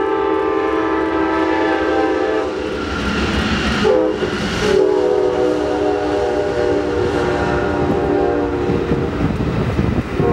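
Multi-chime air horn of a leading Amtrak P42DC diesel locomotive sounding long blasts: one ending about two seconds in, a longer one from about four to nine seconds, and another starting at the very end. Under the horn runs the steady rumble of the passing train's wheels on the rails.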